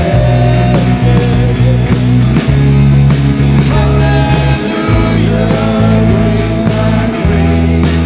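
Live worship band playing a rock-style praise song: a steady drum-kit beat, electric and acoustic guitars, and a group of singers singing together.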